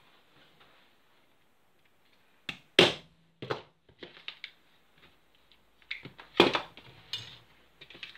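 Clacks and knocks of airsoft rifle parts handled on a table: the loudest knock comes a little under three seconds in and another about two-thirds of the way through, with lighter clicks and rattles between.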